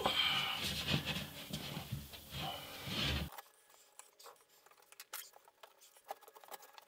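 Hardie cement board panel scraping and rubbing as it is pushed and shifted into place against the wall framing. It stops abruptly about halfway through, leaving only a few faint scattered clicks.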